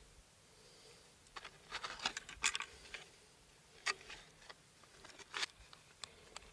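Close handling noises: a cluster of light clicks, taps and scrapes, then a few single sharp clicks, as hands work a wooden mouse-trap set-line board and its line at a hole in the ice.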